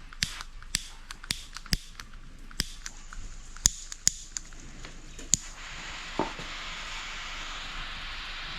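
Sharp, irregular knocks and clicks of hand tools working a small piece of wood, about ten over five seconds. About five and a half seconds in, a steady hiss sets in.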